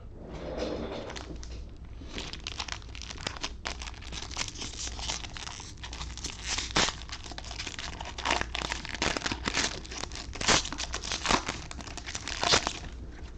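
Plastic wrappers of 2021 Panini Score Football card packs being torn open and crinkled in the hands: a long run of crackles and rips, with a few sharper, louder tears near the end.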